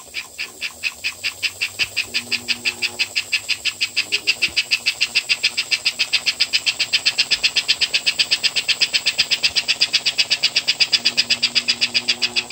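Model steam locomotive smoke unit chuffing. A homemade piston in a copper tube, replacing the worn-out rubber bellows, puffs in an even rhythm that picks up from about three puffs a second to about six. A thin steady high whine runs underneath.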